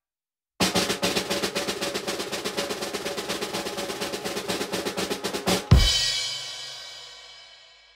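Snare drum roll of rapid even strokes lasting about five seconds, ended by a cymbal crash with a bass drum hit that rings out and fades over about two seconds: a ta-da drum roll.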